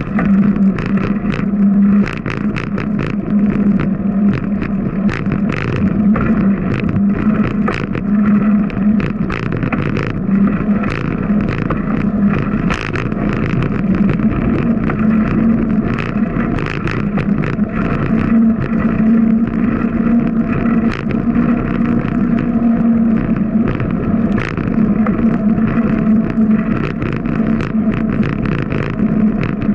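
Bicycle riding noise picked up by a camera on the moving bike: a steady low drone with frequent short rattles and knocks as it rolls over the pavement.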